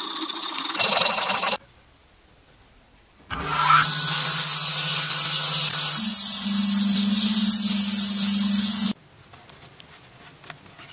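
A hand file rasping across a wooden handle blank in quick strokes, then, after a short lull, a small belt sander spins up and runs loudly as the wooden handle is sanded round against the belt, its hum stepping up in pitch partway through before it stops abruptly. Faint handling clicks follow near the end.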